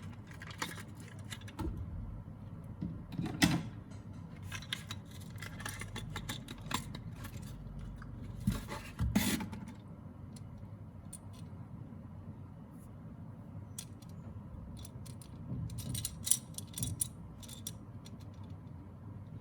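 Handling and unboxing of a small die-cast toy motorcycle and its packaging: irregular clicks, taps, scrapes and rustles, with a cluster of louder clicks near the middle and another near the end.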